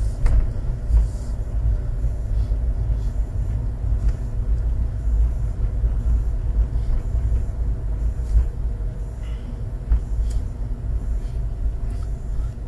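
Motorhome driving along a tarmac road, heard from inside the cab: a steady low engine and road rumble with a few light knocks and rattles.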